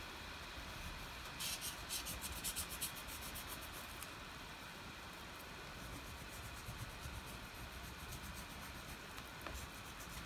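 Crayon scribbling on paper as a leaf shape is coloured in: quick back-and-forth scratchy strokes, loudest in a run from about one and a half to three seconds in, then fainter strokes that pick up again near the end.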